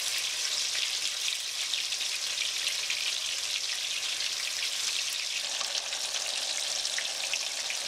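Almond-breaded Gouda sticks shallow-frying in hot vegetable oil in a skillet: a steady crackling sizzle.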